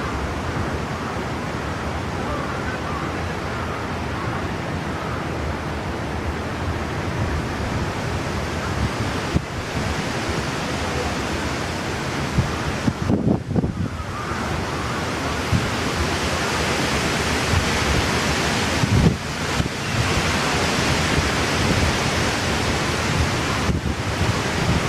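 Typhoon wind blowing steadily against the microphone as a loud rushing noise, with heavier gusts buffeting it about halfway through and again a few seconds later.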